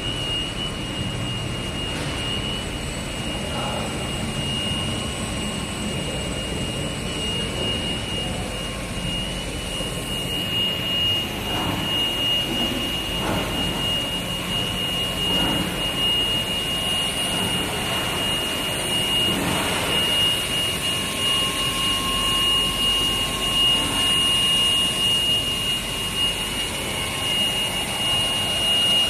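Rubber co-extrusion and microwave curing line running: a steady industrial machine drone with a constant high-pitched whine on top.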